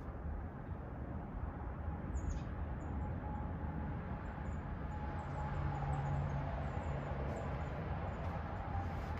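Hampton Bay Princeton II ceiling fan running: a steady low whir with a faint hum, and faint high chirps repeating quickly through the second half.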